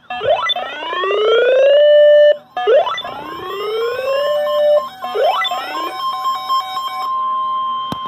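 Several weather alert radios sounding a severe thunderstorm warning at once: a siren-like alarm that sweeps up in pitch and then holds, repeating about every two and a half seconds. About three seconds in, a steady single-pitch warning tone joins it, typical of the NOAA Weather Radio 1050 Hz alert tone.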